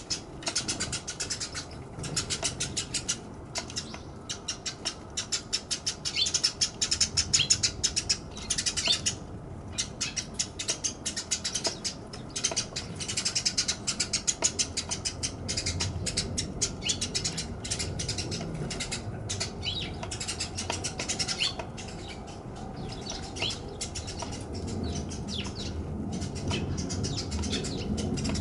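Small birds chirping in quick succession, many short high chirps a second, with some soft flutters.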